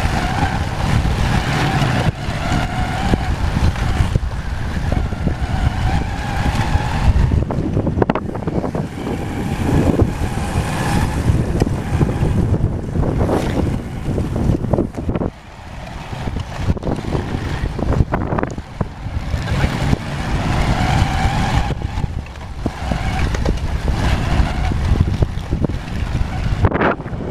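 Small motorcycle riding along a dirt track, its engine running under heavy wind buffeting on the microphone. The engine's hum comes through more clearly in the first few seconds and again about twenty seconds in.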